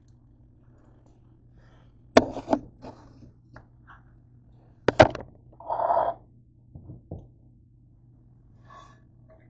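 Metal slotted spatula knocking and scraping against a nonstick frying pan as fried bread cubes are scraped out onto a plate. Two sharp knocks, one about two seconds in and one about five seconds in, a short scrape just after the second knock, then a couple of lighter taps, over a faint steady low hum.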